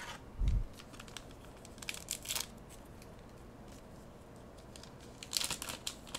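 A foil trading-card booster pack being handled and torn open, with bursts of crinkling and tearing, the busiest near the end. A soft thump about half a second in.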